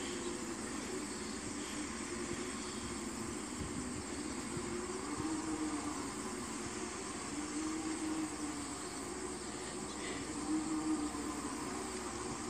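Aquatic weed harvester's engine running steadily at a distance, its note wavering up and down as it works the lake. Insects chirring steadily in the background.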